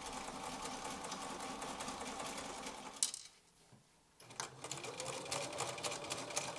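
Bernina activa electric sewing machine stitching fast with a dense, even ticking of the needle. It stops about three seconds in, then starts again about a second later, its motor rising in pitch as it speeds up.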